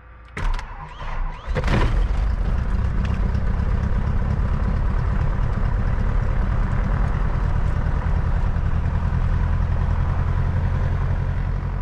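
Cessna Cardinal's four-cylinder Lycoming engine starting, heard from inside the cockpit: a couple of sharp clicks and short bursts, then it catches about a second and a half in and settles into a steady idle.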